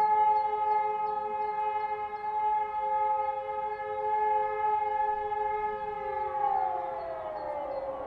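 An E57 motor siren and an SES 600 siren sound together as a steady, slightly dissonant chord. About six seconds in, the chord begins to slide down in pitch as the sirens wind down.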